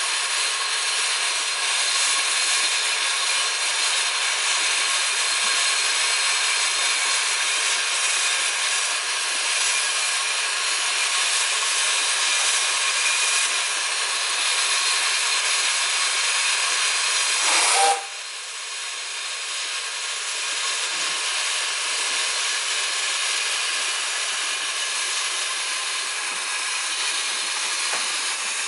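Steam hissing hard from the safety valve of a coal-fired 0-6-2 tank engine built by Exmoor Steam Railway, blowing off while the locomotive stands. The hiss drops off sharply about two-thirds of the way through and a quieter hiss carries on.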